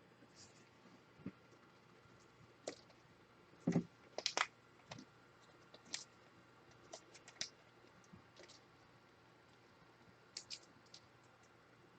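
Faint, irregular clicks and light scrapes of trading cards and their plastic holders being handled, the loudest a quick cluster about four seconds in.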